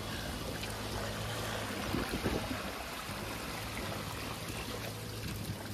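Water streaming and trickling off a small aluminium fishing boat and its trailer as they are hauled up a boat ramp out of the water, with a faint low engine hum underneath.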